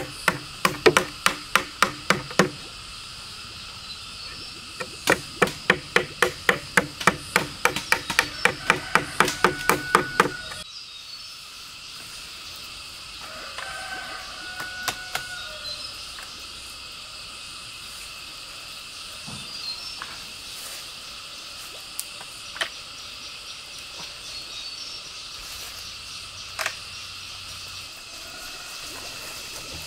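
Hammer driving nails into split-bamboo slats: a quick run of blows, a short pause, then a long even run of rapid strikes that stops abruptly about ten seconds in. After that, a steady insect drone with a few faint knocks.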